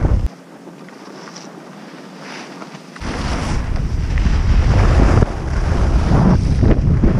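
Wind buffeting the microphone of a helmet-mounted action camera while riding down a ski slope at speed, a loud low rumble with a rushing hiss. The rumble drops away abruptly just after the start and comes back about three seconds in, building again.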